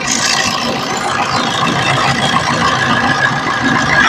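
A Maruti Suzuki Swift's 1.3-litre four-cylinder diesel engine, heard in the engine bay, running just after a start. A thin high squeal grows stronger near the end: the 'kiri' creak that the mechanic traces to the alternator pulley.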